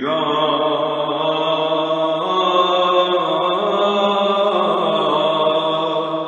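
Byzantine chant in the first mode: a solo chanter sings a long melismatic passage of the Communion hymn for a church consecration, holding drawn-out notes that shift pitch slowly, over a steady low drone (ison).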